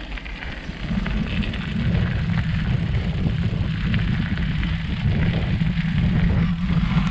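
Mountain bike rolling along a gravel forest trail, heard through a handlebar-mounted camera: a steady low rumble of knobby tyres and frame vibration, which grows louder about a second in.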